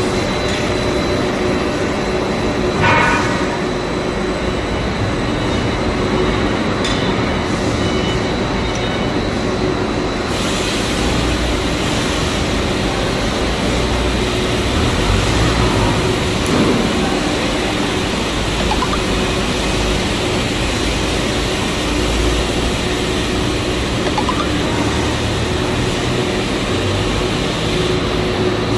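PVC marble sheet extrusion and lamination line machinery running: a steady mechanical din with a constant hum and a high whine.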